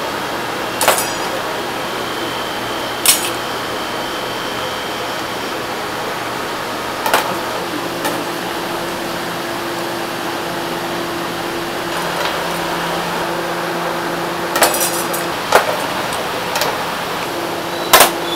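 Small metal ba wan dishes clinking against each other now and then as batter is spread into them, about eight sharp clinks in all, a few close together near the end, over a steady background hum.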